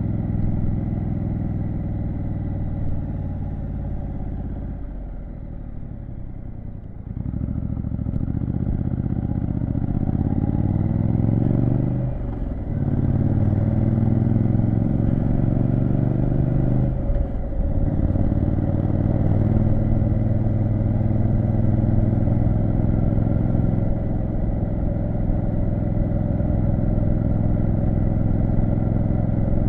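Triumph Street Scrambler 900's parallel-twin engine under way. It eases off briefly, then accelerates with rising revs through two quick upshifts, each a short dip in the sound, and settles into a steady cruise.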